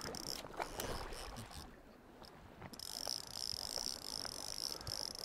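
Wader boots sloshing and stepping through shallow river water over gravel, with a steady high-pitched trill behind that drops out for about a second near the two-second mark.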